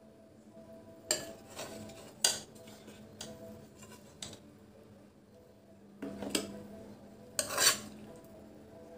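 A serving spoon scraping and knocking against a kadai and a serving dish as chickpea curry is spooned out. Several short, sharp clatters and scrapes, the loudest one near the end, over a faint steady hum.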